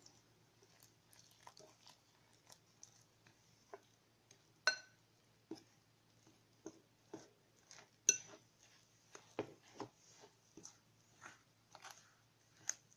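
A metal utensil stirring a crumbly cornmeal-and-flour dough mix in a glass bowl: scattered soft scrapes and clicks, with two sharper ringing clinks of metal on glass, about five and eight seconds in.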